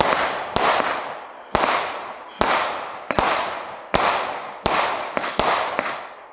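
Multi-shot consumer firework cake firing shot after shot, about eight sharp bangs at a steady pace of roughly one every three-quarters of a second, each trailing off in a fading hiss.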